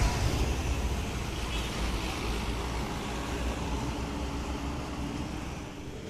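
Intercity coach passing close and driving away, its engine and tyre rumble slowly fading over the road traffic noise.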